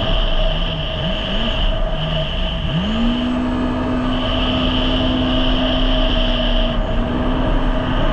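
Jet ski engine running under way. Its note drops right at the start and wavers low for a couple of seconds as the throttle is eased, then climbs back up about three seconds in and holds steady, over a constant rush of noise.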